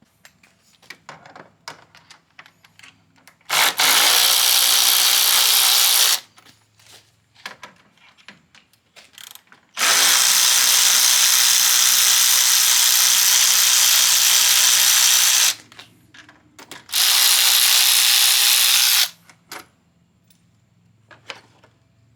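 Power drill running in three bursts, about two and a half, six and two seconds long, backing bolts out of engine-bay parts, with small clicks and knocks of handling between the bursts.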